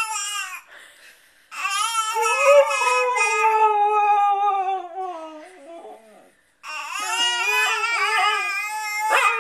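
Siberian husky howl-singing in long, wavering calls that glide up and down in pitch. One call lasts about four seconds and sinks away at its end, and after a short pause another begins near seven seconds in.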